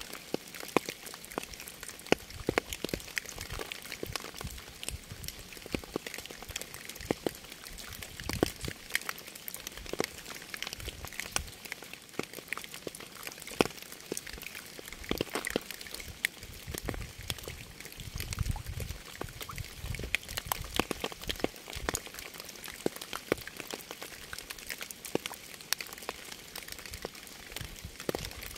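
Rain falling, with many sharp, irregular drop impacts over a steady hiss. A low rumble swells briefly about two-thirds of the way through.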